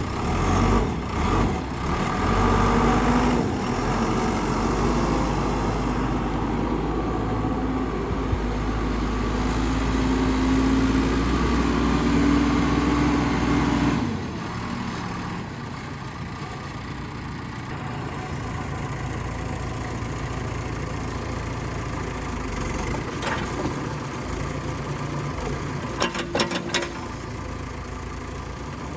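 Case 580 Super L loader backhoe's diesel engine running, louder for about the first half, then dropping suddenly to a quieter steady idle. A few sharp knocks near the end.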